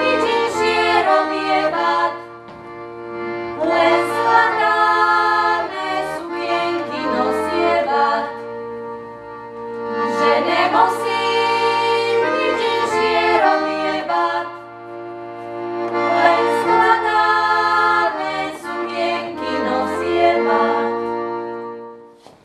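Accordion with a trio of women's voices singing a Slovak folk song, in phrases separated by short pauses over steady accordion bass notes; the song ends near the close.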